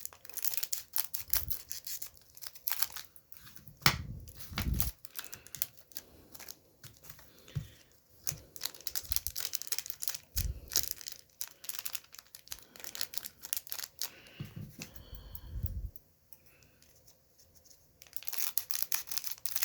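Scissors snipping open foil booster-pack wrappers, the foil crinkling and crackling as it is cut and handled, in irregular spurts with short pauses.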